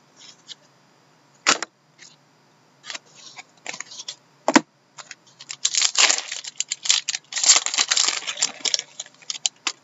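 Trading cards and their packaging being handled by hand: scattered clicks and taps, then a dense crackling rustle from about halfway in that runs for some four seconds.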